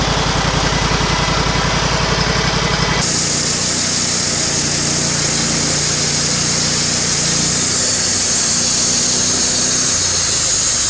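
Sawmill's engine running steadily. About three seconds in, the sound changes abruptly to a strong high hiss over the engine: the saw cutting a slab from an ash log. It cuts off suddenly at the end.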